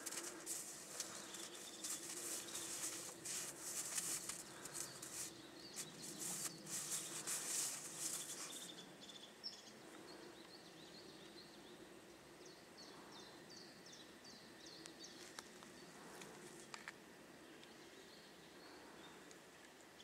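A dog rolling and rubbing itself in snow: rapid, scratchy crunching that stops abruptly about nine seconds in. After that, faint bird chirps.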